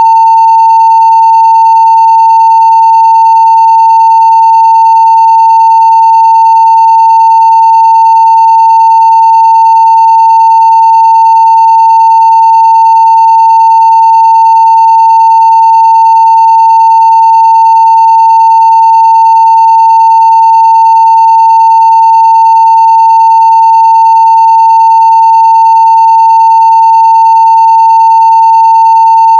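A 900 Hz sine-wave test tone at full scale (0 dB), one loud, steady pitch held without any change.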